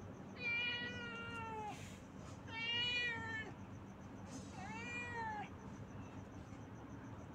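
Domestic cat meowing three times, each meow about a second long and falling in pitch at its end.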